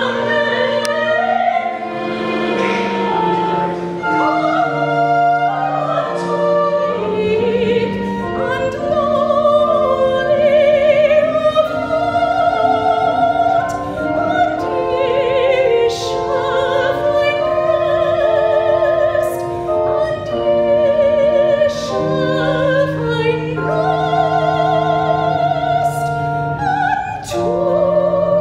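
Solo soprano singing a slow classical piece with a wide vibrato, accompanied by organ with sustained low notes.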